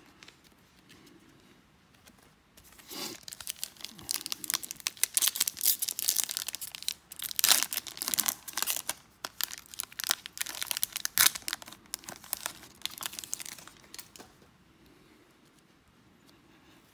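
Plastic wrapper of a 2022 Topps Series 1 baseball card pack being torn open and crumpled by hand: dense crackling and rustling that starts about two and a half seconds in and stops a few seconds before the end.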